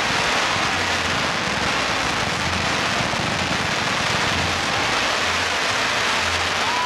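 Fireworks bursting into masses of crackling stars: a dense, steady crackle of countless tiny pops.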